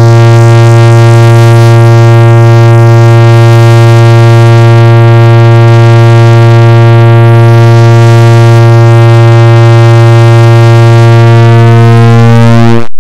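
A clock-tick sound effect repeated so fast, about 110 ticks a second, that it merges into a loud, steady buzzing tone. It cuts off suddenly near the end.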